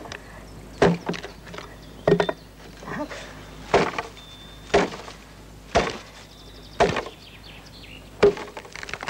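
Repeated chopping strikes into wood with a hand tool, sharp single blows roughly once a second.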